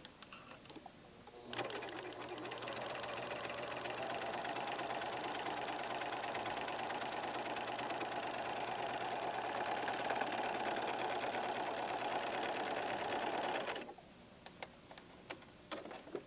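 Pfaff Hobbylock serger sewing a test seam. The motor starts about a second and a half in, picks up a little speed, and runs steadily with a fast, dense ticking of the stitching. It stops abruptly a couple of seconds before the end, followed by a few light clicks.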